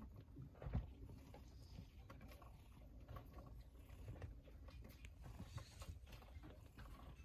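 Faint rustling and small scuffling sounds of newborn Persian kittens squirming as they nurse against their mother on a fluffy blanket, with one soft bump a little under a second in.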